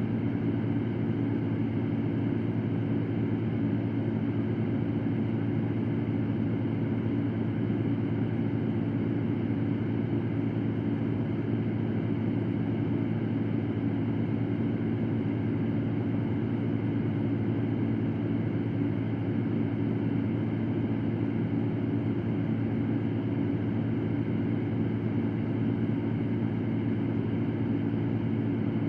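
Electric fan running steadily: an even whooshing hum with a low drone underneath, unchanging throughout.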